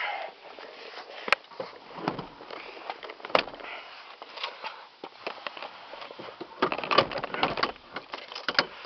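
Rustling of clothing and seat fabric with scattered sharp clicks and knocks as a person clambers out of the cramped back seat of a small two-door car, the loudest rustling about seven seconds in.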